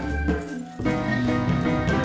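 Background instrumental music with a bass line and organ-like chords.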